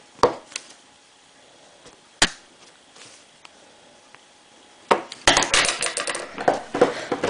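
Sharp knocks and taps against a wooden tabletop: a few separate ones in the first couple of seconds, then a dense run of clicking and knocking from about five seconds in.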